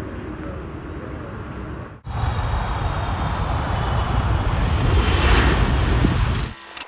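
Jet airliner engine noise: a steady rumble breaks off sharply about two seconds in. A louder jet roar then builds to a peak about five seconds in and cuts off abruptly near the end.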